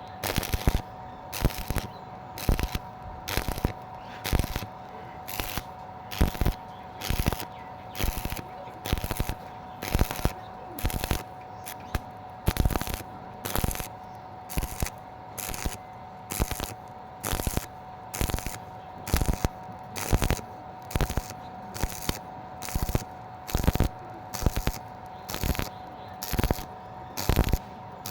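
Stick (MMA) welding arc crackling in short regular bursts, about one and a half a second: the arc is struck and broken again and again, as when stitch-welding thin metal. A steady faint hum runs underneath.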